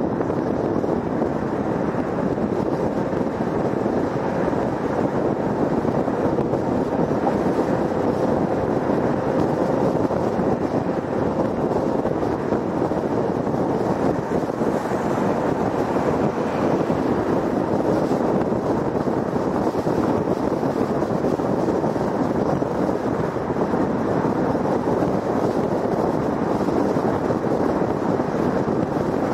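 Steady road noise of a car driving at highway speed on a freeway: tyres on the pavement and rushing wind, with no changes.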